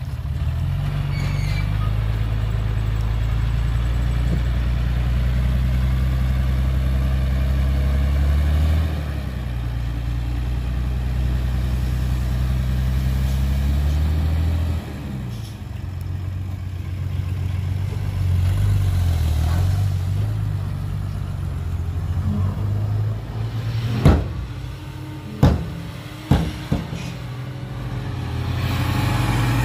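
Heavy diesel earthmoving machinery running, its engine note rising and falling with load. Near the end come three sharp bangs.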